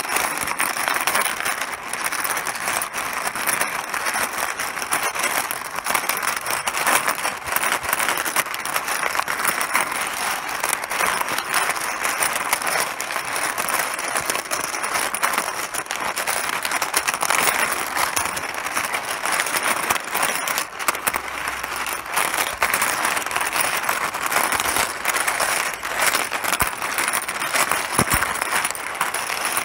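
Mahjong tiles clattering against one another in a dense, continuous stream of small hard clicks.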